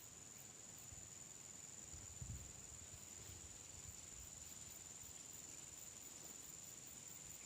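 Near silence outdoors, with a faint, steady high-pitched insect trill and a soft low bump about two seconds in.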